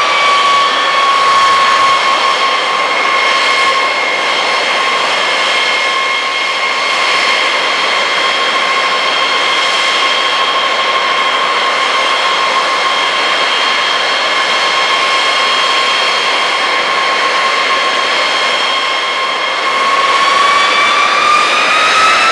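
Boeing B-52 Stratofortress's eight jet engines running on the ground with a loud, high whine. The whine settles down in pitch in the first second, holds steady, then spools up with a rising whine about 20 seconds in as power is added.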